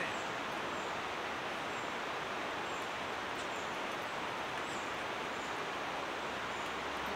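Steady, even woodland rushing noise with a faint, high bird chirp recurring about once a second.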